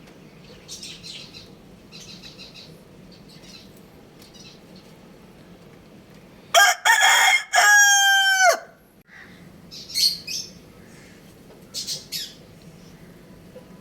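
Rooster crowing once, loud, about six and a half seconds in: a rough opening, then a long drawn-out final note that falls away at the end. Softer short clucks and chirps come before and after it.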